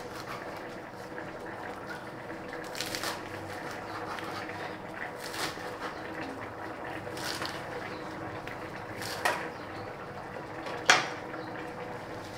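Cleaver slicing through a bundle of leafy greens on a wooden chopping board: a handful of separate knocks as the blade meets the board, a couple of seconds apart, the loudest near the end.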